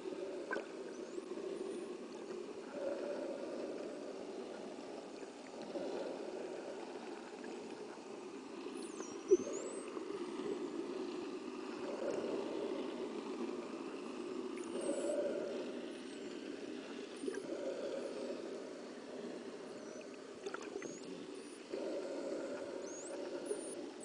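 Steady low underwater rumble, with faint high dolphin whistles sweeping up and down several times through it and a few clicks. A single sharp knock about nine seconds in is the loudest moment.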